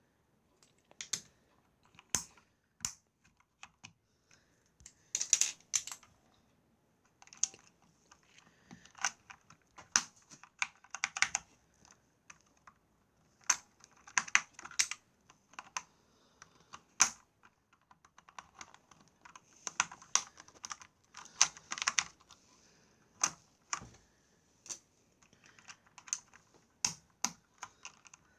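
Plastic keycaps being pried off a mechanical keyboard with a thin card: irregular sharp clicks and short scraping rattles as the card slides under the caps and they pop off the switches.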